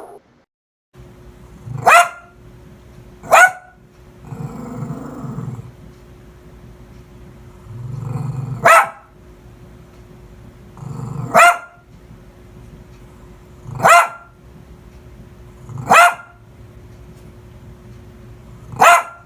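A dog barking, about seven single barks spaced a second or more apart, with low growls in between some of them.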